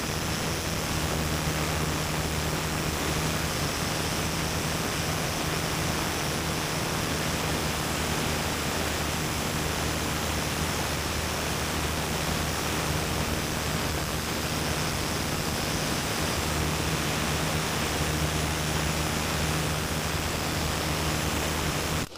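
Pneumatic needle scaler running steadily against the face of a concrete pump piston cup, scaling off built-up grout. It cuts off abruptly just before the end.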